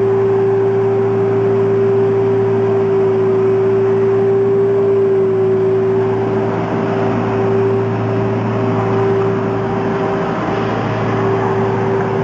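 Compact diesel street sweeper running, a steady drone with one strong sustained whine over a low engine hum.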